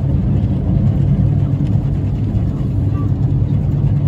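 W-class electric tram running along the rails, a steady low hum from its motors and running gear over the rumble of the wheels on the track.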